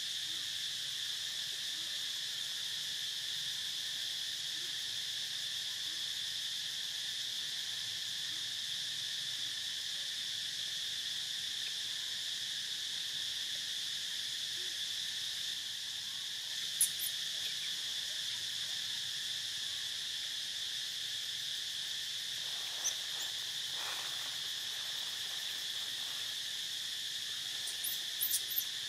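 Steady insect chorus: a constant, unbroken high buzz. A few brief, very high chirps come through about two thirds of the way in and again near the end.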